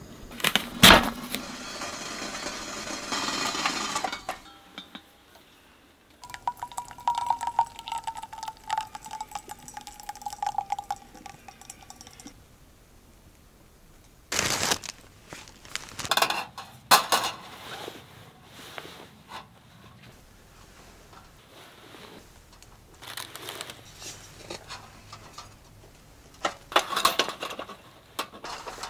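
Camp-kitchen sounds: clinks and knocks of dishes and utensils on a wooden table. For about six seconds in the middle, hot water pours from a kettle into a drip-bag coffee over a mug. Near the end come more clatters as a metal sandwich toaster is handled on a gas stove.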